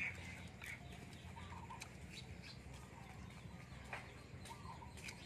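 Chickens clucking faintly in the background, a few short calls scattered through, with some light clicks over a low steady hum.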